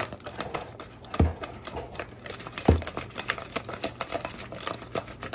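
Chicken wings being shaken in a container to coat them in Alfredo sauce: a quick, irregular run of rattling taps and clicks, with a few heavier thumps.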